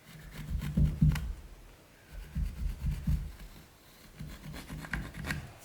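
A wooden workpiece being handled and shifted on a workbench: three short spells of dull knocks and bumps with a few sharper clicks and light scratching.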